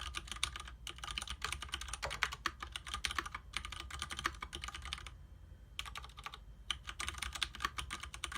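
Leopold FC750R mechanical keyboard with tactile Cherry MX Clear switches and DSA-profile keycaps being typed on: a fast, steady run of keystroke clicks. There are short breaks in the typing, and the longest comes about five seconds in.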